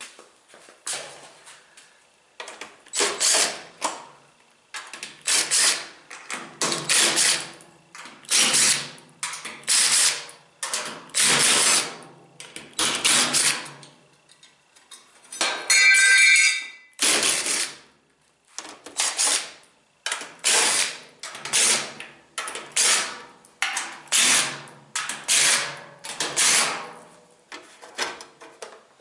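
Cordless power drill/driver run in many short trigger bursts, roughly one a second, each spinning up and dropping off, backing out the fasteners of a washer cabinet. About halfway through one burst gives a brief high whine.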